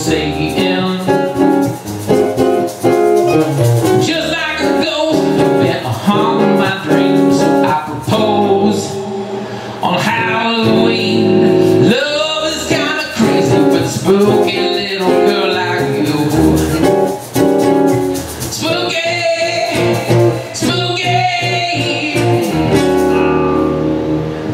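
Acoustic guitars playing with a man singing into a microphone: a small acoustic band performing a song live.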